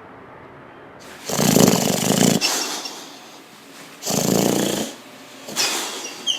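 A sleeping dog snoring loudly: two long snores about three seconds apart, then a softer one near the end with a couple of short high squeaks.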